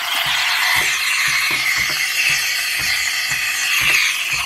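Espresso machine steam wand hissing steadily with its tip in a pitcher of almond milk and matcha, steaming and frothing it.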